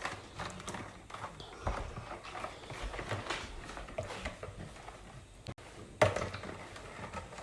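Spoon irregularly tapping, clinking and scraping against a bowl as Jello powder is stirred into boiled water, with a sharper knock about six seconds in.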